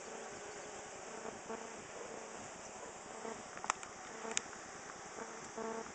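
A mass of Russian honey bees in a package buzzing in a steady drone. Two sharp clicks come a little past the middle.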